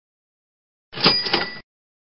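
A short added sound effect lasting just over half a second, starting about a second in: a quick clatter with two ringing bell-like tones, one high and one lower, that stops abruptly.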